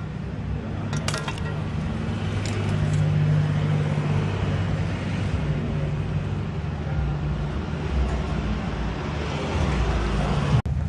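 Steady motor-vehicle engine sound with road traffic noise around it, cutting off abruptly for an instant near the end.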